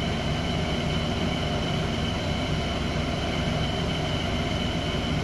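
Car engine idling steadily with one cylinder misfiring, its fuel injector deliberately unplugged.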